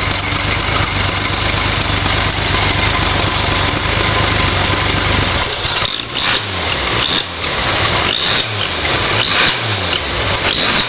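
Freshly rebuilt Hudson 308 Twin H-Power flathead straight-six running on a test stand during a break-in heat cycle; it runs smoothly, which the owner calls slick running. About halfway through, the engine note starts rising and falling in repeated surges, roughly once a second.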